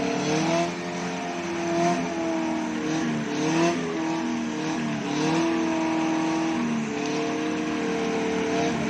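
Small Suzuki four-wheel-drive's engine working under load, its pitch holding and then rising and falling several times as the throttle is opened and eased off.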